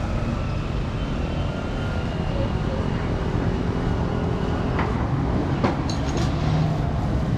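Street traffic: a steady rumble of motorbikes and cars passing on the road, with a few light clicks in the second half.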